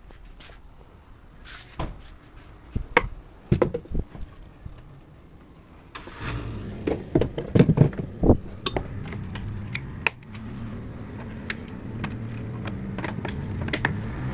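Knocks, clicks and scrapes of a telescope tube and its fittings being handled and set down into a plywood case, thickest in a clatter around the middle. A steady low background sound comes in about six seconds in.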